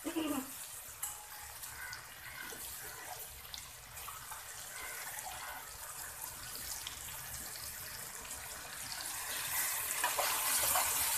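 Chicken pieces, tomatoes and spices in a little water in an aluminium pot, sizzling and bubbling steadily as the masala cooks. Over the last couple of seconds a metal spatula starts stirring and the sound grows louder.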